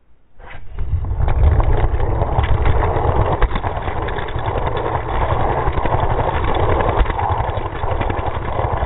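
Low, steady engine-like rumble with a fast rattle of small clicks, fading in over the first second and cutting off suddenly at the end.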